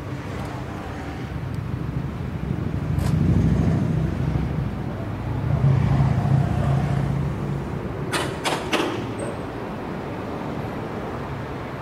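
Diesel engine of an approaching ČSD class 810 railcar, a low steady hum that swells twice as it draws nearer. Three sharp clicks come close together about eight seconds in.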